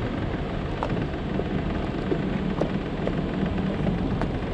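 A boat engine running steadily.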